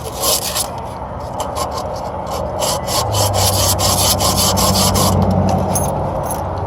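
Copper refrigerant tubing being rubbed clean at its ends, quick repeated scraping strokes, to prepare it for flare fittings. A low steady hum comes in about three seconds in.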